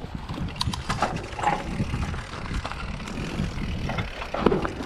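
Mountain bike riding on a dirt trail: a steady low rumble of wind on the microphone with scattered clicks and rattles.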